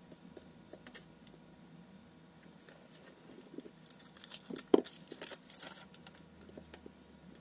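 Small ticks and clicks of phone parts and a precision screwdriver being handled during a smartphone teardown, with one sharp click a little past the middle and a stretch of rustling around it.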